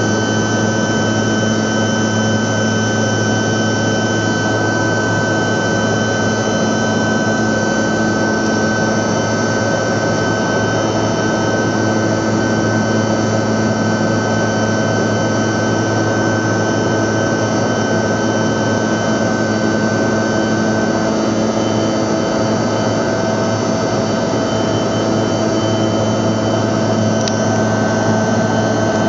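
Steady cabin noise of a Bombardier CRJ200 regional jet climbing after take-off: a loud even drone of its General Electric CF34 turbofans and rushing air, with several steady whining tones over it. The highest whine fades out about two-thirds of the way through.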